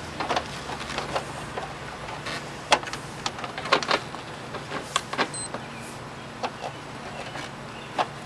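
Plastic air cleaner housing on a Chevy S10 being pushed and worked into its seat in the engine bay: hard plastic rubbing and scraping, with a string of irregular sharp clicks and knocks as it snaps into place.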